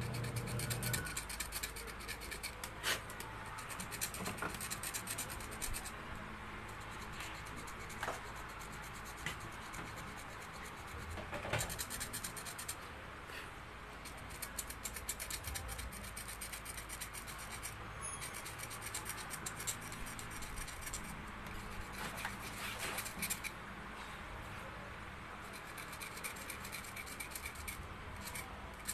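A metal tool scraping and rubbing at the commutator of a blender motor's armature to clean off rust, in irregular strokes with a few short pauses.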